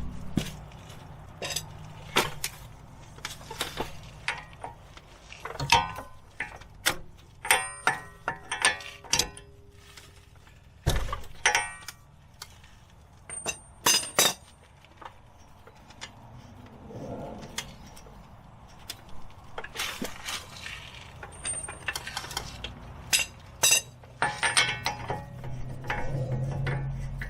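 Metal hand tools clinking and knocking against metal, irregular sharp clanks, some ringing briefly, with a heavier thud about eleven seconds in.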